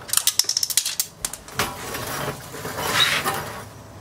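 Wrench ratcheting on the Honda Grom's rear shock mounting bolt: a rapid run of sharp metal clicks for just under a second, then quieter scraping and handling of the tool against the frame.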